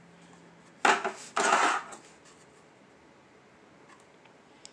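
Handling noise from a hollow plastic toy station building being turned over in the hands: two short rubbing scrapes about a second in.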